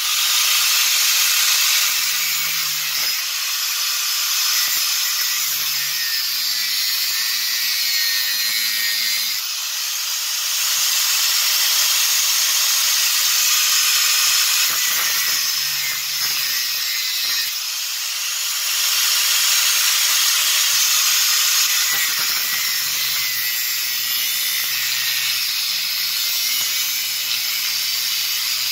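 Angle grinder with a cut-off disc cutting into a rusted steel drill chuck: a steady, loud, high grinding hiss of the disc in metal. It eases off briefly a few times, around a third, two thirds and three quarters of the way through, as the disc is lifted and reset in the cut. The cut is made to get past a stripped, seized left-hand-thread chuck screw.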